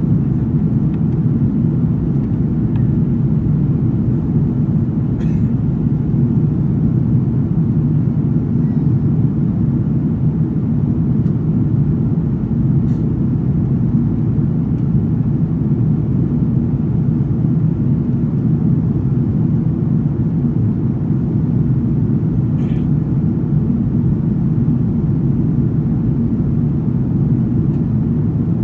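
Steady low rumble of an Airbus A330-200 in flight, engine and airflow noise heard inside the passenger cabin over the wing.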